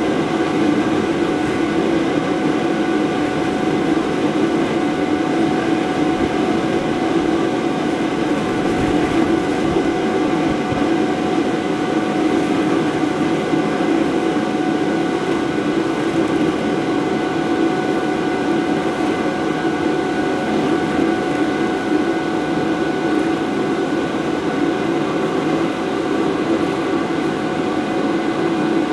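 Electric blower of an inflatable bounce house running steadily, a constant hum with a few thin, steady whining tones above it.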